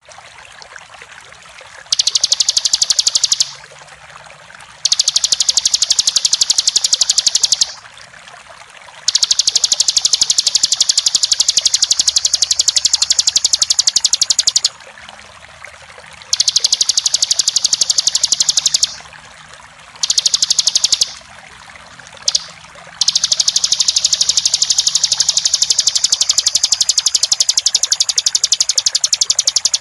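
Bar-winged prinia (ciblek) singing its rapid, continuous 'ngebren' trill. It comes in high-pitched bursts lasting from one to several seconds, with short breaks between them, over a steady rush of flowing water.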